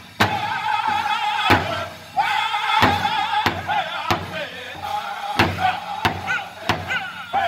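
Powwow drum group playing a chicken dance song: several men beat one large hide-covered drum in unison, about one and a half strokes a second, under high-pitched unison singing.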